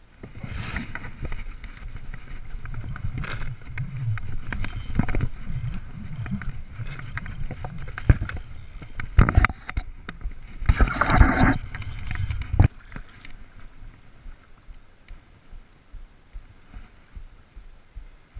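Water splashing and sloshing at the foot of the bank, with heavy knocks and rubbing on the microphone; the loudest splashes come about half a second in and again around eleven seconds, and the noise dies down after about twelve and a half seconds.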